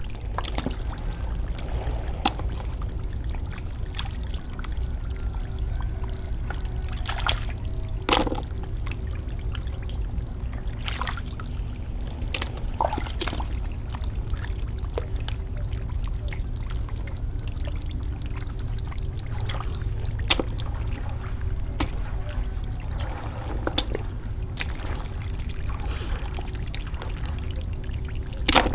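Water pouring and splashing, with scattered sharp splashes and knocks over a steady low rumble.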